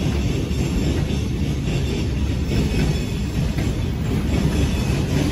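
A train's cars rolling past on the rails with a steady, loud rumble.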